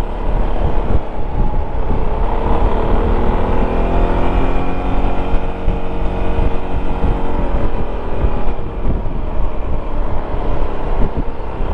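Yamaha XMAX 300 scooter's single-cylinder engine running under way, with heavy wind rumble on the helmet microphone. The engine note rises a little, holds steady, then fades back into the wind noise.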